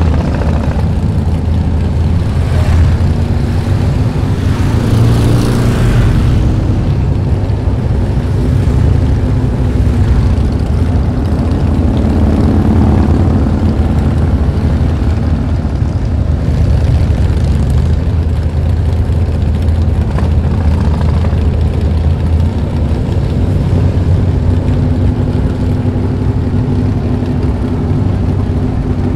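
Many motorcycle engines running in slow, crowded street traffic: a steady low rumble with a bike or two revving in the first few seconds.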